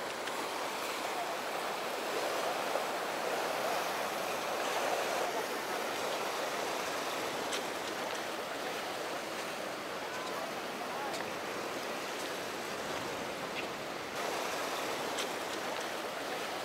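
Steady rushing wash of surf and breaking waves, with no clear engine note.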